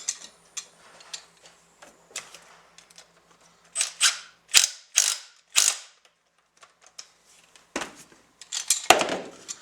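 Ratchet wrench clicking as it tightens the retaining nut on the gear shaft of a floor sander's orbital attachment. A run of about four strokes, two a second, comes in the middle, with another burst near the end.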